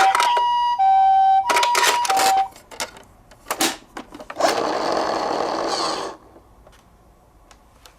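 Japanese ambulance two-tone siren (pii-poh), alternating between a higher and a lower tone and stopping about two and a half seconds in. A few clicks and a sharp clack follow, then nearly two seconds of whirring mechanical rattle that cuts off, leaving it quiet.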